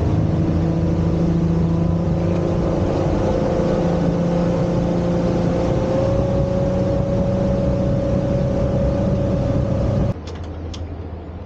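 Motorboat engine running steadily at cruising speed, a droning engine tone over the rush of wind and churning water. The sound cuts off abruptly about ten seconds in, leaving a quieter background with a few light clicks.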